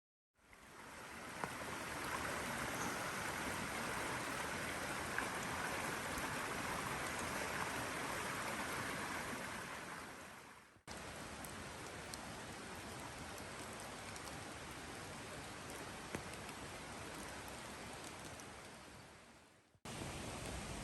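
Steady rain hiss with no pitch or rhythm, with a few faint clicks. It cuts abruptly to a slightly quieter stretch of the same hiss about eleven seconds in.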